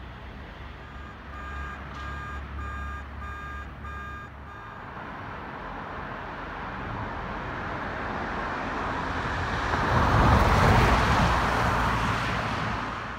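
A string of short electronic beeps, about two a second, for a few seconds. Then a car approaches and passes close by, its engine and tyre noise swelling to a peak and fading away.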